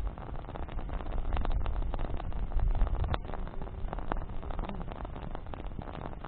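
Wood campfire burning: a steady low rumble of flame with scattered crackles and pops from burning branches, one sharper pop about three seconds in.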